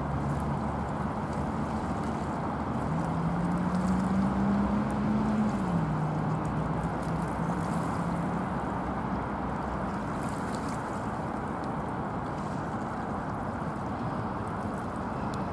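VL15 two-section DC electric locomotive running light engine along the track: a steady rumble with a low hum that rises in pitch and then drops abruptly about six seconds in.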